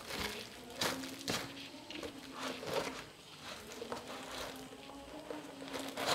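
Bubble wrap crinkling and a cardboard box rustling and scraping as they are handled, in irregular short crackles, the loudest about a second in and again near the end, over a faint steady low tone.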